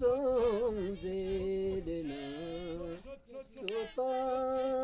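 A voice singing a slow melody in long held notes, the pitch wavering on some notes, with a short break about three seconds in.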